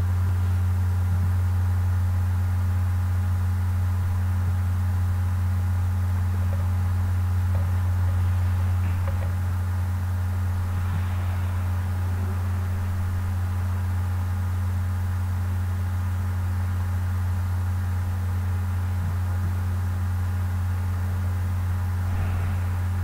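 A steady low hum with a few faint higher tones held over it, unchanging throughout.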